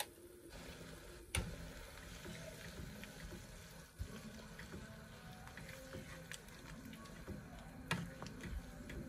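Wooden spoon stirring snake gourd pieces in coconut milk in a pan, a soft liquid sloshing with a few sharp knocks of the spoon on the pan, the loudest about a second and a half in and again near the end.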